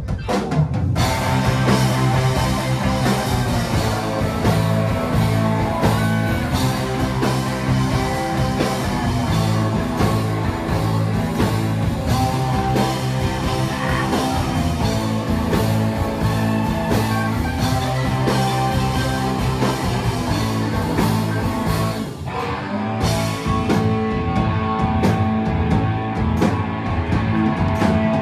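Live rock and roll band playing: electric guitars, drum kit and saxophones. The full band comes in about a second in after drums alone, with a short break a little past two-thirds of the way through before the band picks up again.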